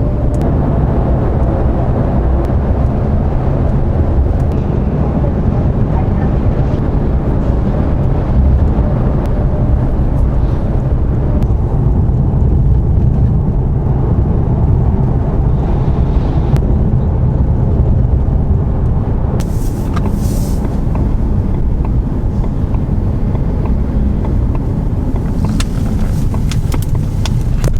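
Ford Mustang on the move, with a steady low rumble of road and engine noise and a few faint clicks in the last third.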